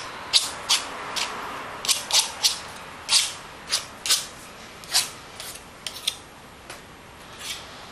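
Palette knife scraping and dabbing thick acrylic paint onto a taped-down painting surface: a quick, irregular series of short scrapes, about two a second.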